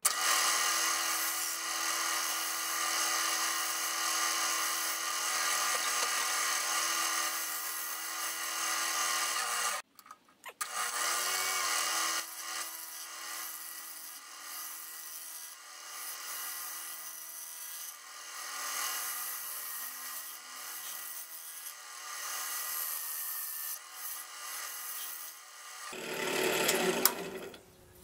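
Wood lathe running with a steady motor whine while a hand-held gouge cuts into a spinning block of 2x8 construction lumber, hollowing a bowl-shaped recess, with a rough scraping hiss from the cut. The sound breaks off briefly about ten seconds in. The motor whine stops about two seconds before the end, and a louder rough noise follows.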